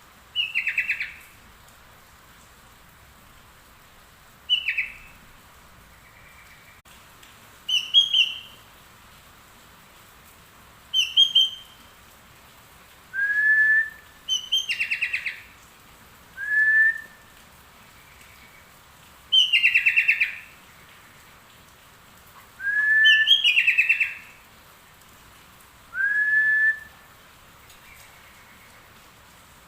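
Sooty-headed bulbul (kutilang) singing short, loud phrases every two to three seconds. It mixes fast falling trills with short rising whistles, phrases learned from the yellow-vented bulbul (trucuk).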